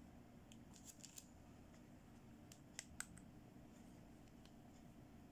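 Small hard-plastic toy accessories clicking and tapping as they are handled: a few faint clicks about half a second to a second in, then two sharper clicks a little before three seconds in, over faint room hum.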